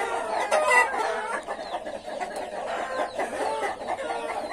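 A flock of chickens clucking and squawking over one another in a continuous racket, with one louder call standing out at about half a second to a second in.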